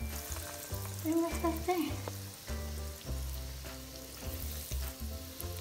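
Breaded fish croquettes sizzling steadily in a pan of hot olive oil as they are moved about with a fork, with background music underneath.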